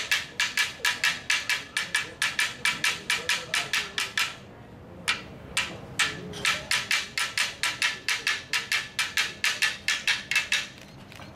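Wooden boomerangs struck together as clapsticks, a fast even rhythm of about four to five hard knocks a second, each with a short ringing tone. The beat breaks off briefly about four seconds in, picks up again and stops near the end.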